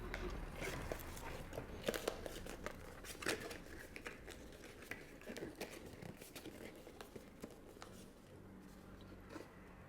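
Perfume packaging being handled and unwrapped: irregular crinkling and tearing with sharp clicks, busiest in the first few seconds and dying down near the end.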